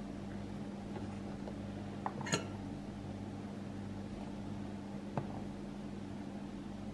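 A metal spoon clinking against a ceramic bowl as black beans are spooned onto rice: two clinks a little after two seconds in and one about five seconds in. Underneath is a steady low hum from a running kitchen appliance.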